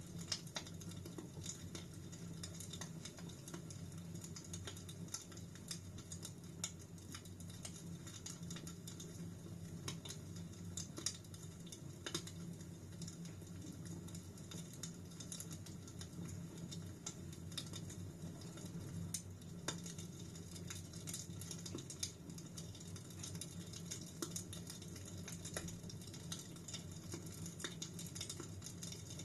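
Wood fire crackling in a fireplace: irregular sharp pops and snaps over a steady low background of the burning fire.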